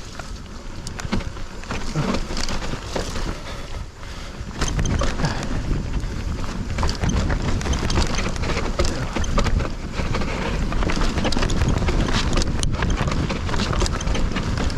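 Hardtail mountain bike riding a rough dirt trail: wind buffets the microphone in a steady low rumble while the bike rattles and clatters over bumps, growing louder about four and a half seconds in.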